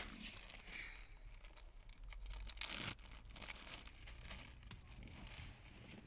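Soft rustling and scratching from movement on a car's back seat, with a louder scrape about two and a half seconds in, over a low steady hum.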